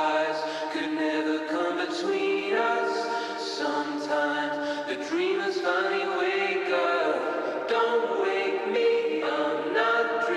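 Background music of several voices singing held notes in harmony, choir-like.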